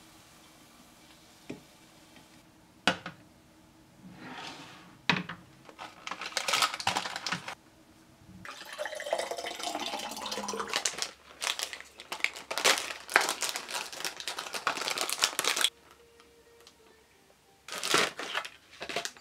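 Sharp clicks of dishes on a table, then water poured from a pitcher into a glass about halfway through. This is followed by long stretches of plastic packaging crinkling and tearing as a pack of seasoned laver is opened.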